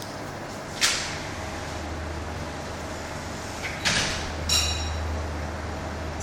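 A person snoring heavily, two breaths about three seconds apart. Each opens with a sudden hissing rasp and trails off into a low drone.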